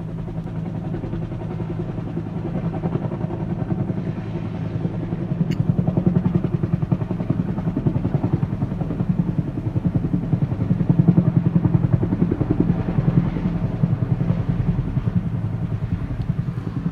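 Helicopter flying overhead: a steady engine drone with a rapid rotor beat, growing louder about five seconds in and easing slightly near the end.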